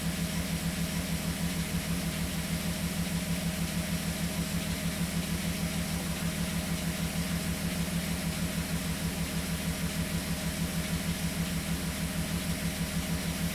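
Six-cylinder engine of a VW Eurovan idling with a steady, rhythmic pulse while misfiring: the number 4 fuel injector is drawing no current, so that cylinder is not firing.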